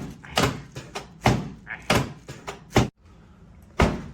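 A series of about six loud, dull thuds, spaced roughly half a second to a second apart, with a pause of about a second near the end.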